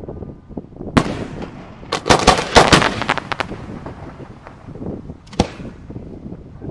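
Aerial fireworks shells bursting: one sharp bang about a second in, a rapid crackling volley of loud reports a second later, then another single bang near the end, with a low rumble between the bursts.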